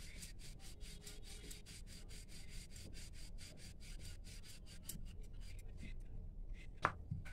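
A wooden rolling pin rolling out wheat-flour roti dough on a round board: a quick, even rhythm of soft rubbing strokes that thins out after about five seconds. A light knock near the end.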